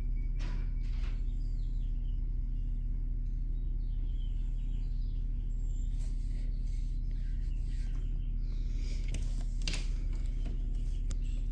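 A steady low hum runs throughout. Faint rustling and clicks come between about six and ten seconds in.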